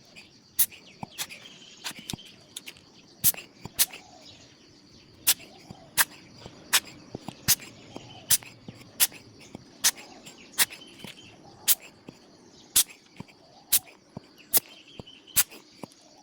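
Sharp clicks, about one a second and coming a little faster and more evenly in the second half, over a faint steady chorus of crickets and short bird chirps.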